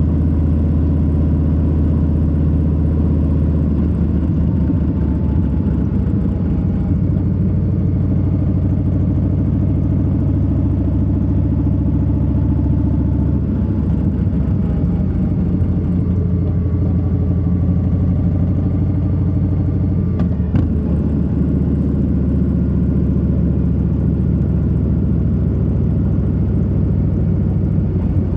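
Harley-Davidson Low Rider S's Milwaukee-Eight 117 V-twin running steadily while the bike cruises, its note changing about halfway through. A brief knock sounds about twenty seconds in.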